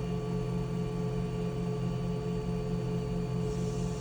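Mazak VCN 510C-HS vertical machining center running with a steady hum of several constant tones while its fourth-axis rotary table indexes back the other way.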